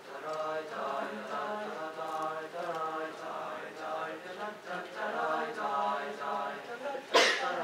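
Mixed high-school choir singing sustained chords. A short, loud burst of noise cuts in near the end.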